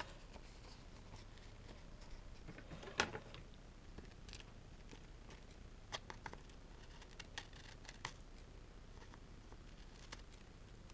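Scissors snipping through tissue paper backed with copy paper: faint, scattered short snips, the sharpest about three seconds in.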